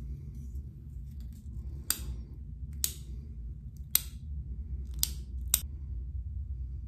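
Five sharp plastic clicks over about four seconds, the last two close together, as the sliding plastic safety cap is worked on and off the head of a Schick twin-blade disposable razor, over a low rumble of handling noise.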